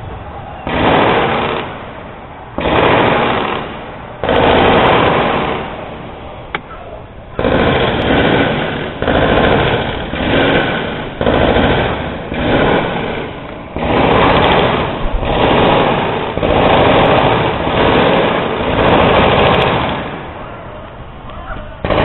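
Repeated bursts of machine-gun fire with blank rounds, each burst about a second long with short gaps between, some twenty in all: the simulated gunfire that opens BUD/S Hell Week.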